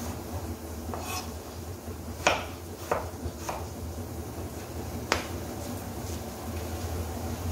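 Kitchen knife knocking on a wooden cutting board as raw potato is sliced: about five sharp, irregularly spaced knocks, the loudest about five seconds in, over a steady low hum.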